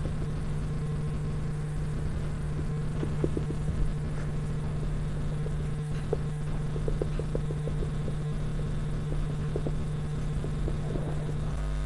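Steady low electrical hum with a rumble beneath it, and now and then short squeaks and taps of a marker writing on a whiteboard.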